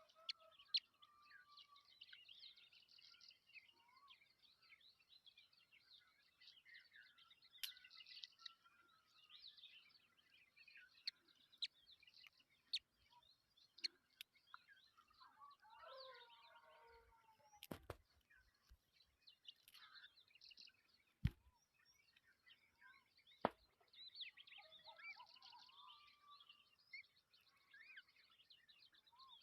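Faint, busy bird chirping and twittering, with a handful of sharp clicks scattered through it.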